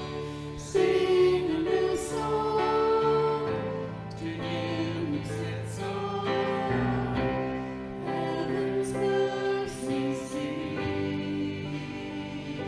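Worship music: voices singing a slow hymn-like song in long held notes over instrumental accompaniment.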